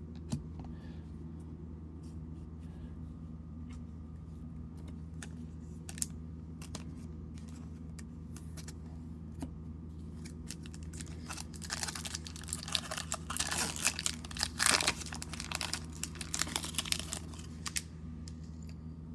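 Trading-card pack wrapper being torn open and crinkled, the tearing loud and dense for several seconds starting about eleven seconds in. Before that come scattered light clicks of cards being handled, over a steady low hum.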